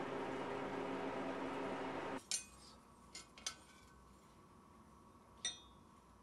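A steady low hum that cuts off abruptly about two seconds in, followed by four sharp metallic clinks as steel tongs and an iron bar are set down against the anvil face.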